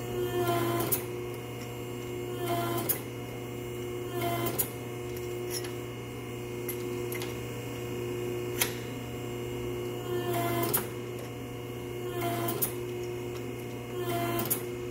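Hydraulic pipe bender with an expander head running: a steady pump hum throughout, with a clunk and a short whine every couple of seconds as the head strokes out and stretches the end of a new piece of exhaust pipe.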